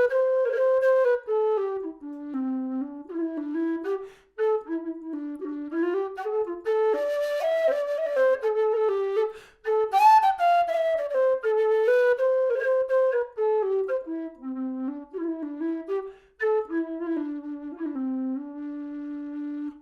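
Aluminium low whistle with a plastic head, played solo: a tune moving quickly between notes, with a few short breaks for breath, ending on a long held low note.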